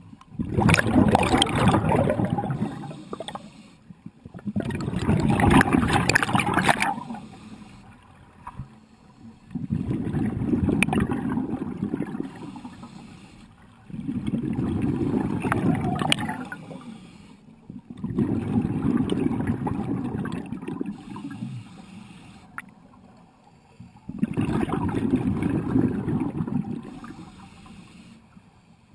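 Scuba regulator exhaust bubbles heard underwater: a diver's breathing, six bubbling exhalations about every four to five seconds, with quieter inhalations in between.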